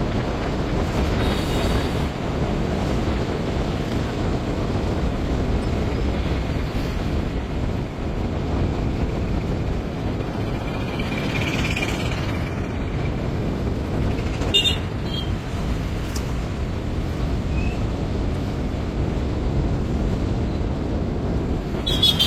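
Steady low rumbling noise throughout, with a brief sharp sound about fourteen and a half seconds in and another near the end.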